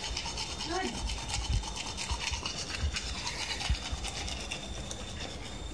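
Manual toothbrush scrubbing teeth: the bristles rasp against the teeth in quick repeated back-and-forth strokes, close to the microphone.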